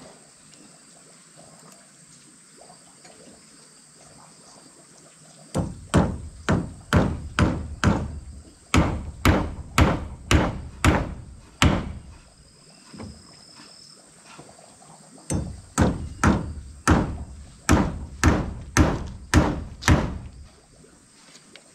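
Claw hammer knocking on a small wooden block held on a wooden step: two runs of steady blows, about two a second, with a pause of about three seconds between them.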